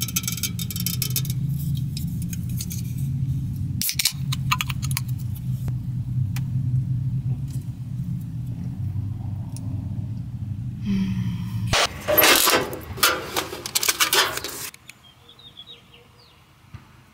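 Low, steady rumble of an idling car heard from inside the cabin, with scattered clicks and crackles. About twelve seconds in, a loud burst of rattling and rustling takes over for a few seconds, then the sound drops away sharply.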